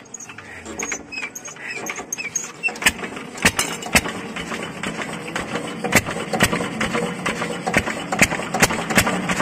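Single-cylinder agricultural diesel engine being hand-cranked and catching about three seconds in, then running with slow, regular firing knocks. It is a hard-starting engine firing up after air has been bled from its fuel system.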